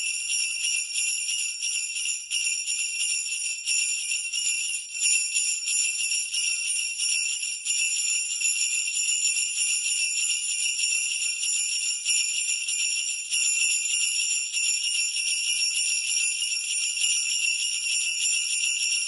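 Sleigh bells shaken continuously in a steady, even jingle.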